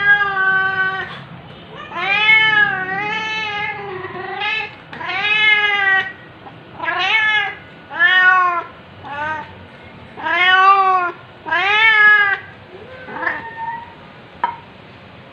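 A torbie cat meowing over and over, about a dozen meows in a row, some long and drawn out with a rise and fall in pitch, others short. The calls stop about two seconds before the end.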